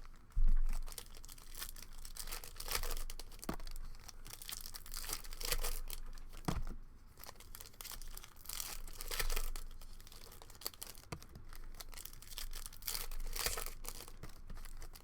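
Trading card pack wrappers being torn open and crinkled, with irregular crackling and rustling as cards are handled. A single low thump about half a second in is the loudest moment.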